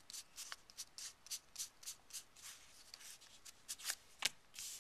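World of Warcraft trading cards from a freshly opened booster pack being slid through the hands one by one, a quick papery rustle about three to four times a second, with one sharper snap about four seconds in.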